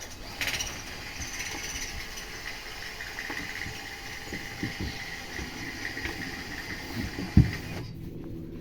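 A machine with spinning blades running with a steady whirring hiss, then cutting off abruptly near the end; one loud knock comes shortly before it stops.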